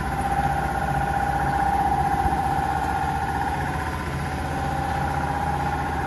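A steady mechanical drone with a whine, such as a running engine or motor, that sags slightly about four seconds in.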